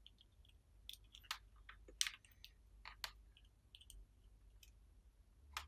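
Faint, irregular sharp clicks of alligator clips and multimeter test leads being handled and clipped onto each other and onto terminals.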